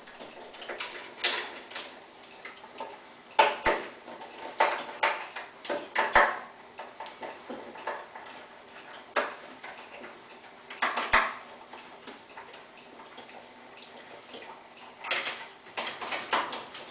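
Irregular small metallic clicks and light knocks as tie-bar bolts and their hardware are turned in by hand and started in a wooden table frame, not yet tightened.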